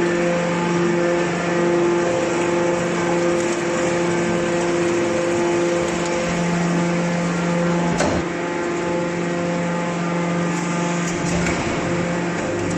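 Hydraulic can baler's motor and pump running with a steady hum and whine. There is one sharp knock about eight seconds in.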